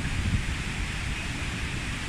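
Steady rush of strong wind and storm surf, with wind buffeting the microphone.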